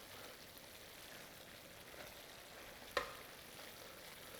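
Faint, steady sizzle of risotto rice and onions cooking in a shallow pan over high heat, with a single sharp knock about three seconds in.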